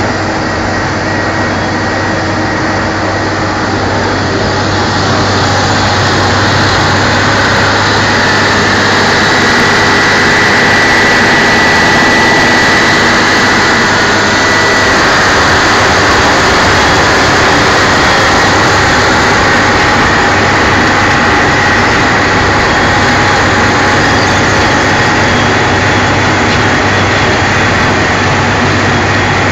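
Wirtgen 2100 DCR cold milling machine at work: its diesel engine running under load and the milling drum grinding up pavement, a loud, steady din with a high whine in it. It grows a little louder after about five seconds.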